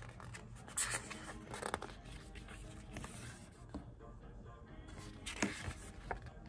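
Pages of a glossy paper album booklet being turned and handled, with crisp paper rustles about a second in, just before two seconds, and again about five and a half seconds in.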